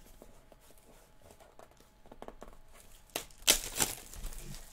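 Light taps and clicks of a cardboard trading-card box being handled, then loud crinkling of its plastic wrapping in a few quick bursts about three seconds in.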